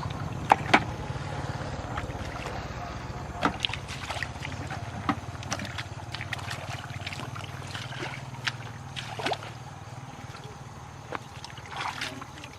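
Water sloshing and trickling around a small fishing boat, with scattered sharp knocks and clicks, two of them loud about half a second in, over a steady low hum.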